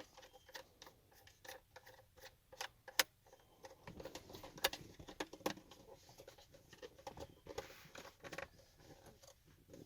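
Light, scattered clicks and scrapes of plastic parts being worked together as a 12 V USB socket is fitted into a dash panel, with one sharper click about three seconds in and a busier run of clicks a second or so later.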